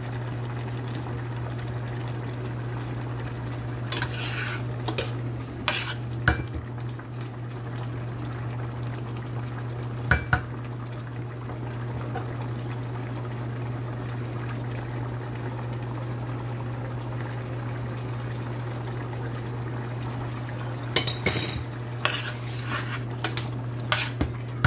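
A metal spoon stirring curry in a stainless steel pan, scraping and clinking against the pan, with a few clinks about four to six seconds in, one around ten seconds, and a cluster near the end. A steady low hum runs underneath.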